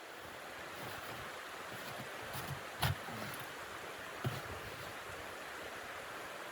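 Steady rushing wind of a blizzard. A sharp knock comes about three seconds in and a softer one about a second and a half later.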